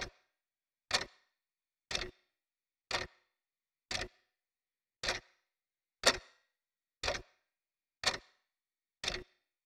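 A clock ticking steadily, one sharp tick a second.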